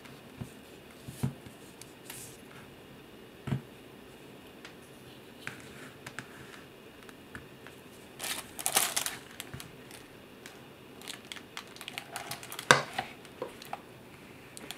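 Handling noise from a clear plastic waterproof phone pouch and its lanyard: scattered light clicks and knocks, a burst of plastic crinkling about eight seconds in, and a sharp knock near the end.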